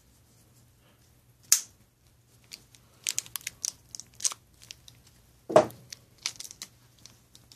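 A plastic ration packet being crinkled and torn open by hand: a sharp crack, then a run of quick crackles, and a louder thump about halfway through, over a faint low hum.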